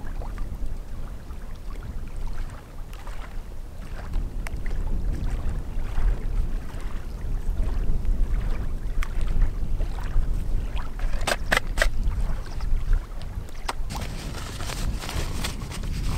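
Wind rumbling on the microphone, with small clicks and rustles of twigs and birch bark being handled. There is a quick run of about four sharp clicks a little past the middle. About two seconds before the end, the crackle and hiss of a small newly lit twig campfire comes in.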